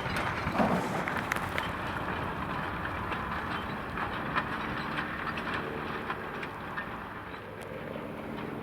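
Valtra T.153 tractor's six-cylinder diesel engine running steadily under load while ploughing, with scattered clicks and clanks over it.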